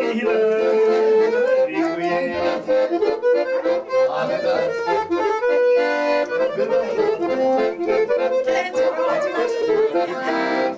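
Accordion playing a traditional tune, with quickly changing notes.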